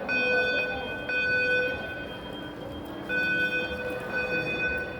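Building fire alarm sounding: an electronic tone in repeated pulses, with a short break about two and a half seconds in before it resumes.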